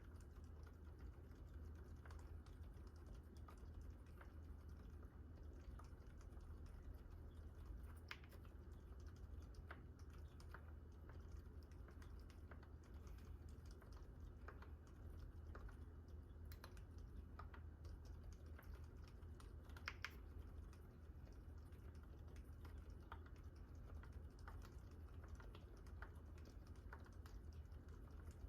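Typing on a GMMK Pro mechanical keyboard with a brass plate and fully lubed Gazzew Boba U4 silent tactile switches: a continual run of soft, faint, muted keystrokes.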